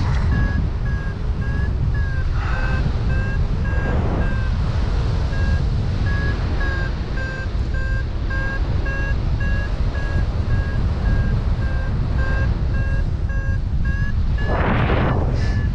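Paragliding variometer beeping in a continuous series of short beeps whose pitch shifts slightly, over heavy wind noise on the microphone. The intermittent beeping is the vario's signal that the glider is in rising air. A brief rush of louder wind comes near the end.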